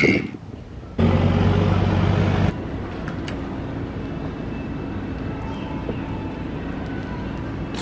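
A motor vehicle's engine running steadily. It starts abruptly about a second in, louder at first, and drops to a lower, even hum after about a second and a half.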